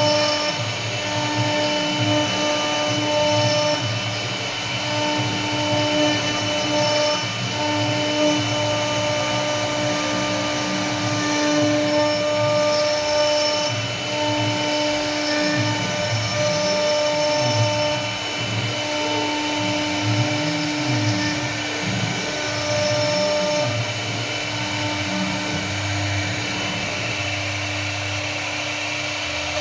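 CNC wood router carving: the spindle runs with a steady whine while the bit cuts wood, and a lower machine sound shifts up and down as the cutting head moves along its path.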